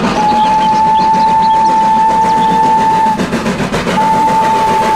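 Steam locomotive whistle sounding two long, steady blasts: the first holds about three seconds, the second starts about a second after it ends. Under it runs the noise of the moving train.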